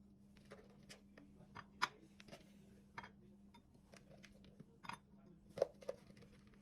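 Light clinks and taps of dishes and cutlery being handled, a dozen or so short ones with a few sharper clinks, over a faint steady hum.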